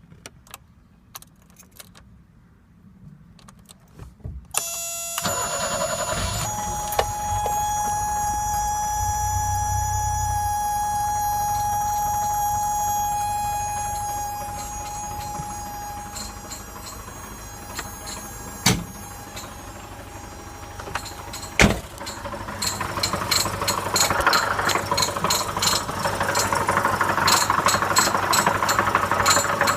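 BMW E21 engine starting about four and a half seconds in and running with a steady whine. Two sharp clicks come near the middle. Over the last third it gets louder, with a rapid high-pitched ticking: the weird noise the owner is chasing, which comes in when the engine is revved.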